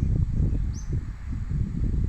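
Irregular low rumbling and rustling close to the microphone, with a single short, high, falling bird chirp about three-quarters of a second in.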